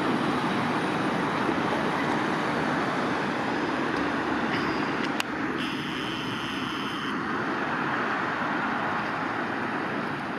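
V3A-2S-93 tram and street traffic running past, a steady rushing noise. About five seconds in comes a sharp click, then a high squeal lasting about a second and a half.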